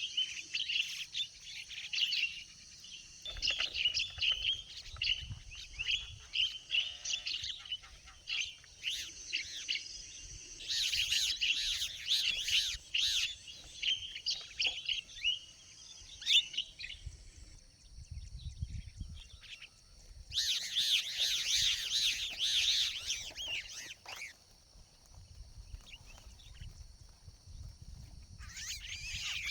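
Birds chirping and chattering in bursts, with louder flurries about ten seconds in, at about twenty seconds, and near the end. A steady high-pitched whine runs beneath.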